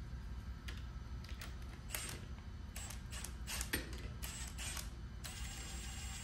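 Irregular metal clicks and clinks from a jaw-type puller being worked into place on a cast-iron fan pulley's hub, followed by a steady faint hiss from about five seconds in.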